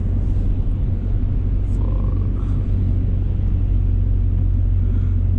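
Steady low rumble of a car heard from inside the cabin while driving, the engine and tyres on a wet road.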